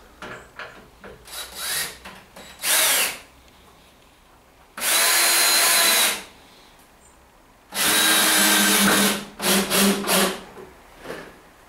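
Cordless drill with a crosshead bit driving long wood screws into timber. There is a short run about three seconds in, then two longer runs of over a second each, then a few brief bursts near the end.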